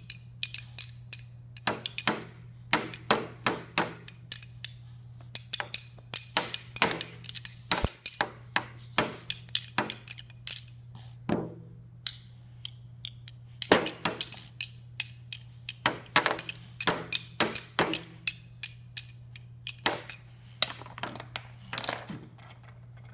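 Small child beating a plastic toy drum with plastic-headed mallets: quick, uneven runs of sharp taps broken by short pauses.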